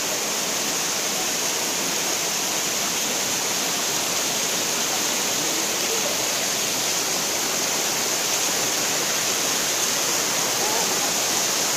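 Steady rushing of a stream's water cascading over rocks, with faint distant voices near the end.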